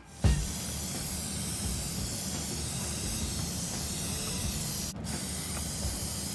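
Aerosol spray can hissing steadily as it is sprayed over an oil pastel drawing, with a short break about five seconds in before the spray resumes.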